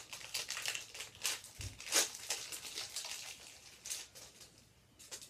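Hockey card pack wrapper crinkling and tearing as it is opened and handled: a string of quick, papery rustles, the loudest about two seconds in, thinning out after about four seconds.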